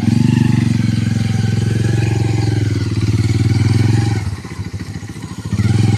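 Motorcycle engine running steadily at raised revs, dropping to a lower, uneven idle about four seconds in, then revving up briefly near the end.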